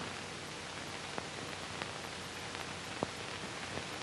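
Steady hiss with a few faint scattered clicks: surface noise of an old film soundtrack.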